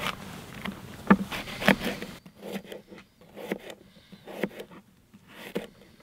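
A knife dicing an apple on a cutting board: about a dozen irregular, sharp knocks as the blade cuts through and strikes the board.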